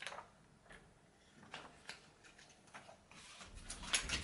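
Thin plastic protective film being peeled off a new iPhone XR's screen and handled: scattered soft crackles and small clicks, with a louder cluster of crackling and handling bumps near the end.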